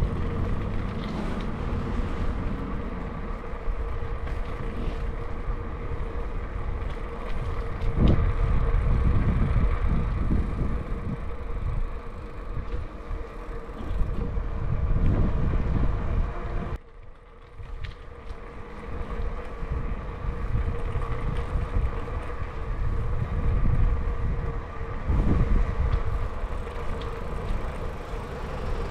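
Wind buffeting the microphone of a camera riding on a moving bicycle, a gusty rumble that surges and eases, over a steady hum of riding along the street. It drops away briefly a little over halfway through, then picks up again.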